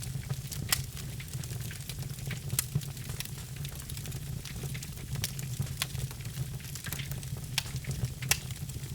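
Logs burning in a fireplace, crackling with irregular sharp pops, a few of them louder, over a steady low rumble.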